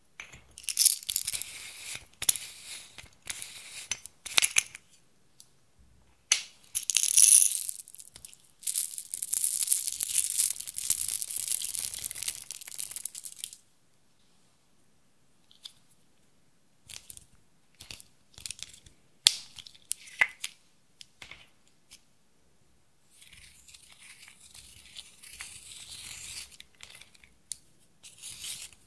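Sprinkles and small plastic beads shaken and poured from a container into a glass dish: a rattling hiss in several bursts, the longest lasting about five seconds. Then a few scattered clicks, and near the end a soft scratching as a pin scrapes pressed eyeshadow out of its compact.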